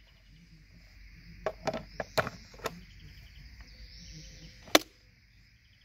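Battery pack sliding into a Husqvarna 520iLX cordless string trimmer: a few plastic knocks and clicks around two seconds in, then one sharp click near the end as the battery seats.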